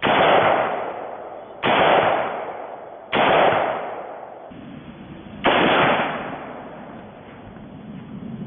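Bushmaster AR-15 rifle fired four times, single semi-automatic shots spaced about one and a half to two and a half seconds apart, each sharp crack trailing off in a long echo.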